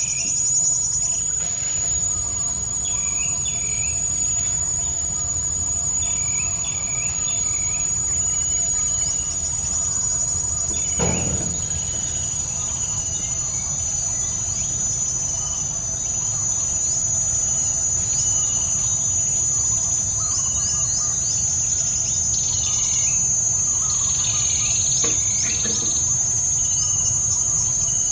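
Steady high-pitched insect drone with birds chirping in short repeated phrases every second or two. There is a single brief knock near the middle.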